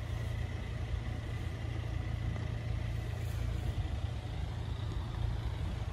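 Steady low outdoor rumble at the closed level crossing, with a faint steady high tone that fades out about two and a half seconds in; no train is passing.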